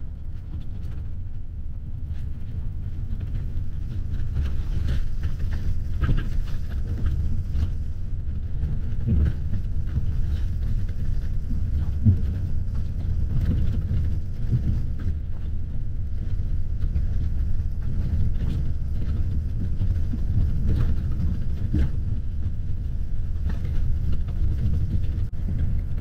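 Road noise inside a moving coach bus: a steady low rumble of the engine and tyres, with a few light knocks from the road.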